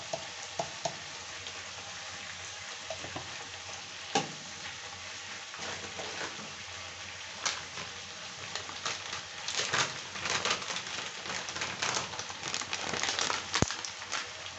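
Potato and parwal (pointed gourd) pieces with onion and spices frying in oil in a kadai: a steady sizzle with crackling pops that grow busier in the second half, and a couple of sharper single pops.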